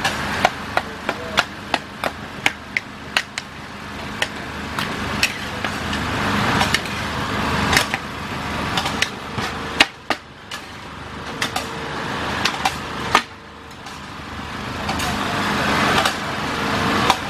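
Metal ladles clanking and scraping against a large steel wok as fried vermicelli is tossed: a quick run of clanks at first, then sparser, sharper strikes, over a steady rushing noise.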